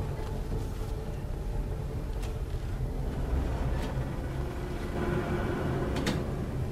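Low, steady rumble of a submarine's interior, with a few faint sharp clicks and ticks.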